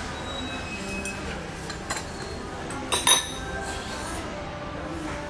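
Cutlery clinking against ceramic bowls and plates while eating: a few light clinks, then a louder double clink about three seconds in.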